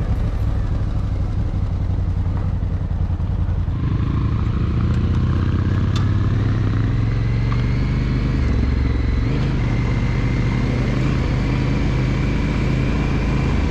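Adventure motorcycle engine running under load on an off-road trail, its note shifting around four seconds in and again around nine seconds in, with a sharp tick about six seconds in.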